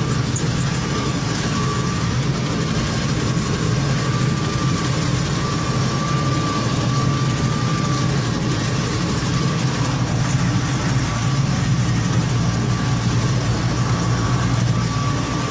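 Heavy tractor engine running steadily under work, with a constant high whine that wavers slightly in pitch.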